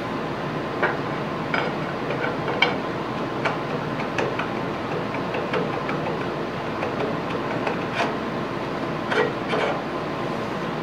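Light irregular clicks and knocks of metal machine parts being handled and set down, over a steady background hiss.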